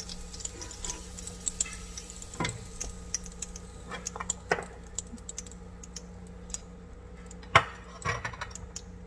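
Spatula scraping and clicking against a non-stick frying pan and a plate as fried candlenuts, garlic and chillies are pushed out of the oil, with one loud sharp knock near the end, over a steady low hum.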